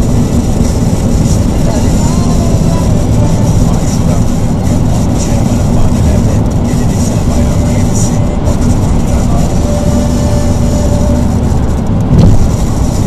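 Road noise inside a car cabin at motorway speed: a loud, steady low rumble of tyres and engine, with a short louder bump about twelve seconds in.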